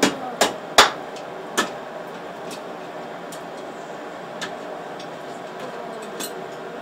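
Blacksmith's hammer striking hot iron on an anvil: four sharp blows in the first second and a half, the third the loudest, then only a few light taps over a steady hiss.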